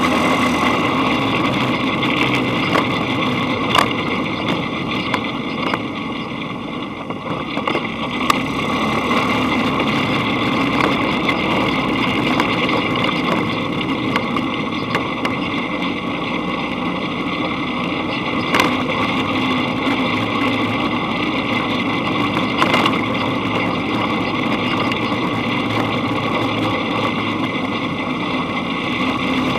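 Dune buggy engine running steadily as the buggy drives along a dirt track, with a few sharp knocks as it jolts over bumps. The engine eases off briefly about six seconds in.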